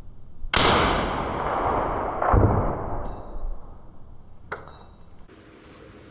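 AR-15 in .223 Rem fired through a titanium STEEL HORDE QD-T suppressor: a suppressed shot about half a second in, its report lingering for a couple of seconds. Another sharp report follows about two seconds later, and a light click comes near the end.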